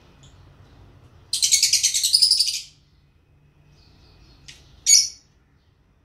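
Peach-faced lovebirds chattering: a loud, rapid burst of shrill chirps lasting about a second and a half, then a short chirp and a sharp loud call about a second later.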